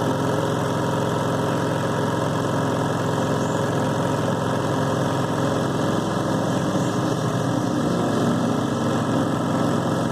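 Yamaha EF4500iSE inverter generator running steadily under a heavy load, its engine hum holding an even pitch and level throughout.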